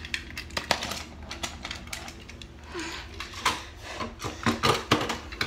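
Plastic toy train pieces clicking and clattering irregularly as they are handled, over a steady low hum.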